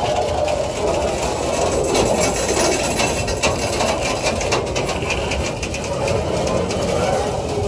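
Freight train wagons rolling past close by: steel wheels rumbling on the rails with rapid clicks and clacks over the rail joints, thickest between about two and four seconds in.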